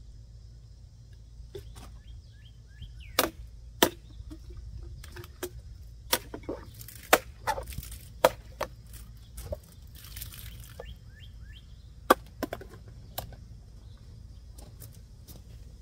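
A series of sharp snaps and knocks from working the knives, about a dozen at irregular intervals, several coming in quick pairs half a second apart, over a steady low background rumble.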